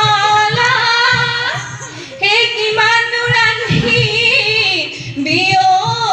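Women singing a Jeng Bihu, an Assamese women's Bihu folk song, in phrases of long held, wavering notes, with short breaks about two and five seconds in.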